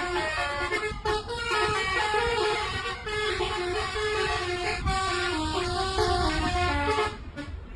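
Bus telolet horn, a multi-trumpet musical air horn, playing a quick tune of short stepping notes over a low vehicle rumble; it stops about seven seconds in.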